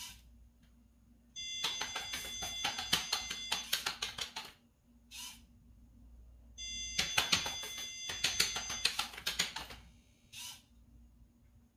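Makeblock mBot's onboard buzzer sounding a steady high beep of several tones for about two seconds, twice, over a crackling buzz from the small servo motor swinging the gate arm. Two shorter crackly buzzes come between them and near the end.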